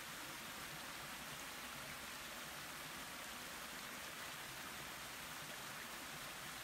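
Faint, steady rush of a small creek running over rocks.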